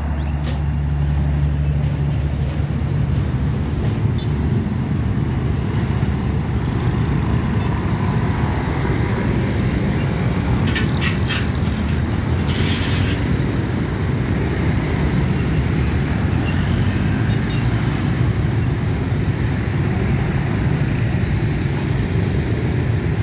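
Heavy motorbike and scooter traffic rolling over a railway level crossing: many small engines running and pulling away together in a steady rumble. A few short high beeps come through about eleven and thirteen seconds in.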